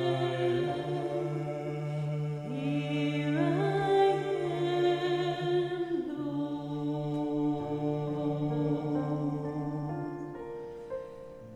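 A man and a woman singing a slow hymn together in long held notes, over piano accompaniment; the sound fades down near the end.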